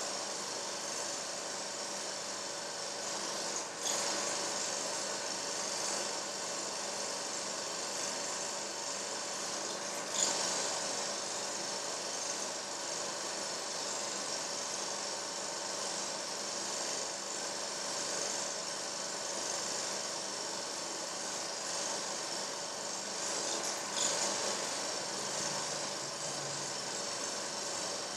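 Steady mechanical whirring and hiss with a faint steady hum underneath, broken by three brief clicks.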